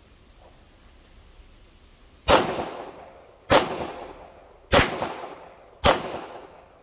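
Four pistol shots from a 9mm CZ handgun, spaced a little over a second apart and starting about two seconds in. Each sharp crack trails off in a fading echo.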